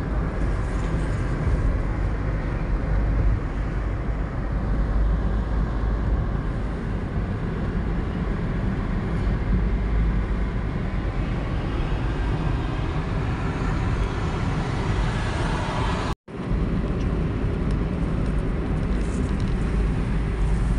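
Steady road noise inside a moving car's cabin at highway speed: a low rumble of engine and tyres with wind hiss. It cuts out for an instant about three quarters of the way through.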